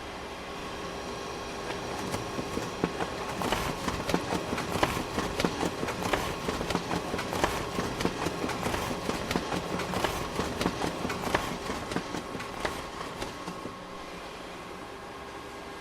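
Office printer printing: a steady mechanical hum with rapid clicking that grows louder about two seconds in and eases off near the end.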